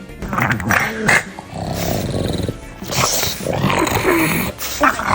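Pug grunting and growling in short, irregular runs, over background music.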